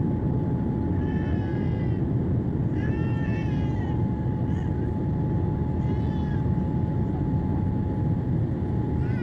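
Steady cabin noise of a Boeing 787 airliner on approach, the hum of engines and airflow with a steady mid-pitched tone running through it. Over it, three short, high, wavering cries, about a second, three seconds and six seconds in.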